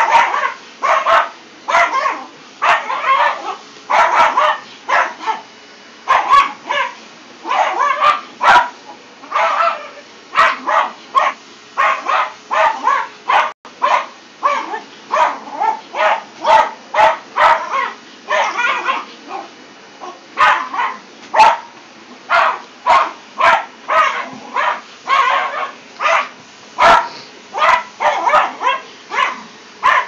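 Jack Russell terrier puppy barking and yapping non-stop in quick runs of sharp barks with short breaks, at a vacuum cleaner whose motor noise runs steadily underneath.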